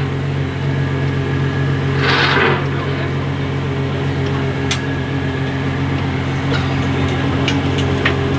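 Car engine idling steadily, a deep even hum with no revving, with a brief rush of noise about two seconds in.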